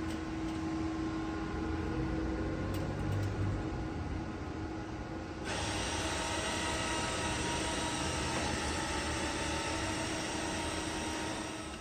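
Steady machine hum with a constant mid-pitched whine. About five and a half seconds in it switches abruptly to a louder, hissier hum with faint whines.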